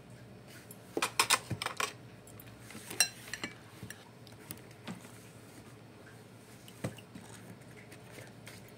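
A spoon clinking and scraping against a bowl as poha is scooped up: a quick cluster of taps about a second in, one sharp ringing clink near three seconds, then scattered light ticks.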